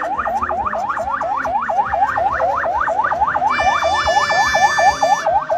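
Electronic vehicle siren in a fast yelp, rapid rising sweeps about five a second. About two-thirds of the way in, a steady horn blast sounds over it for about a second and a half.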